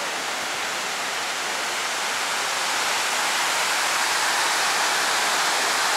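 The 9/11 Memorial south pool's waterfall: water pouring down the pool's walls in a steady hiss of falling water, growing louder over the first few seconds.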